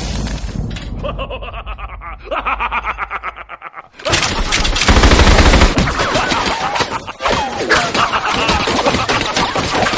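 A fading rumble, then a rapid run of sharp cracks, about ten a second, from about two seconds in. From about four seconds in comes a louder, denser clatter of cracks, like automatic gunfire.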